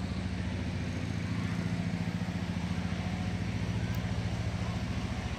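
An engine running steadily at low speed: a low hum with a fast, even pulse.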